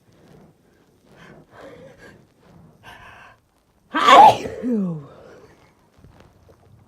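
A person's gasping in-breaths building up over a few seconds, then one loud sneeze about four seconds in, its voice falling in pitch at the end.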